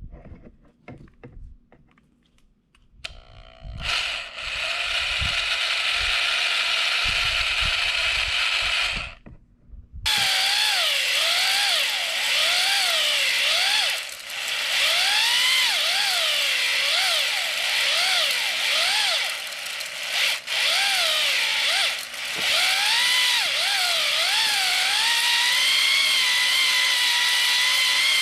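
Electric drill spinning a flex hone (ball hone) inside a Kawasaki KX100 two-stroke cylinder. The first run lasts about six seconds and stops briefly. A longer run follows, its pitch dipping and rising over and over as the hone works the bore to clear scoring from the cylinder wall.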